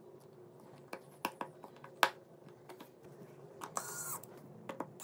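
Small sharp clicks and taps of smartphone shield and plastic parts being handled, the sharpest about two seconds in, then, near the end, a brief whir of an electric precision screwdriver driving out a screw.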